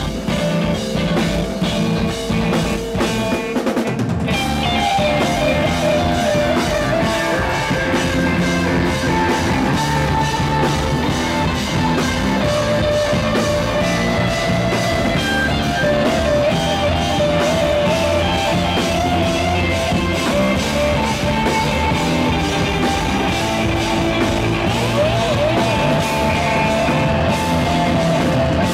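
Instrumental rock band playing live: electric guitars and a drum kit at full volume, with a guitar melody line that wavers in pitch. About four seconds in, the music breaks briefly, then comes back in fuller.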